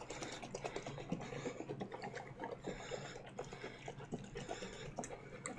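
A jug of apple juice and honey sloshing as it is shaken hard, with rapid irregular clicks and knocks from the container: the must being mixed to dissolve the honey and aerate it.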